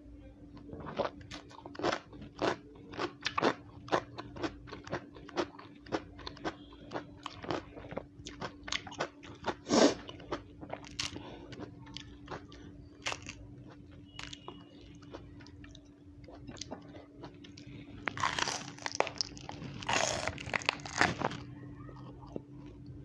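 Crunching and chewing of raw vegetables: a run of sharp, crisp crunches a few times a second, one especially loud crunch about ten seconds in, then a denser, louder burst of biting and crunching near the end. A steady low hum lies underneath.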